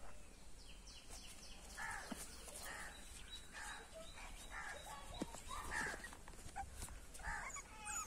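A series of short animal calls, about one a second, with a faint steady high-pitched tone behind them.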